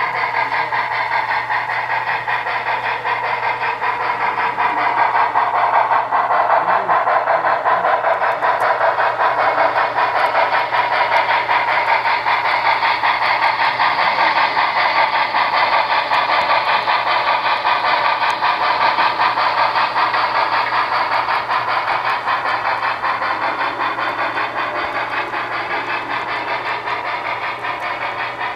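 Model Northern Pacific A-3 4-8-4 steam locomotive and its train of ore hopper cars running along the track: a steady mechanical clatter and hum of the small wheels and motor, easing a little near the end.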